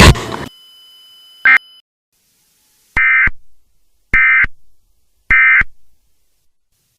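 Emergency Alert System end-of-message data tones: three short, buzzy digital bursts about a second apart, the coded signal that closes an alert. A single short beep comes before them, about one and a half seconds in.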